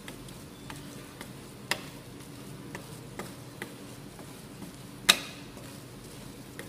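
Metal spatula tapping and clinking against a steel ice-cream cold plate as frozen ice cream is spread thin: irregular sharp clicks, with one loud ringing clank about five seconds in, over a steady low hum.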